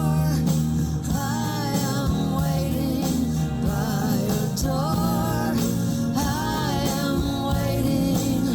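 A song playing from a CD through a hi-fi system: a singing voice with a melodic line over a steady bass and instruments.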